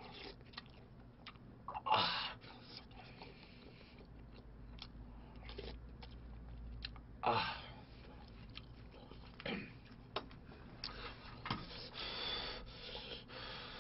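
Close-up eating sounds from a man eating budae-jjigae: chewing and small mouth and utensil clicks, with a few short, louder mouth noises several seconds apart. Near the end comes a longer stretch of slurping as noodles are lifted from the stew.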